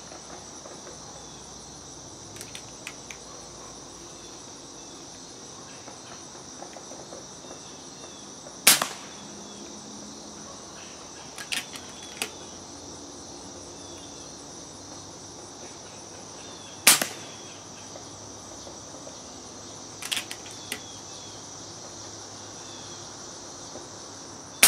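Three shots from an FX Streamline .22 PCP air rifle at high power, quieted by a DonnyFL Sumo moderator. Each is a short, sharp snap, about eight seconds apart, with fainter mechanical clicks between shots. Steady high insect chirping runs throughout.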